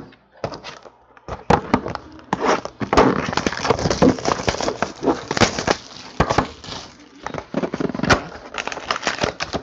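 Cardboard trading-card boxes being handled on a tabletop: a busy run of irregular taps, knocks and scrapes as a box is pulled from the stack and opened.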